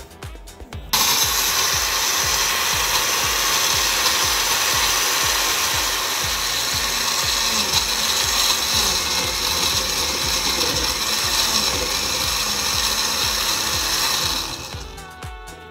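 Electric countertop blender running at speed, puréeing chopped tomatoes, peppers and onions. It switches on about a second in, runs steadily, and winds down near the end.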